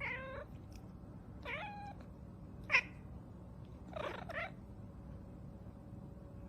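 A cat meowing four times in short calls. The third, about three seconds in, is the briefest and loudest.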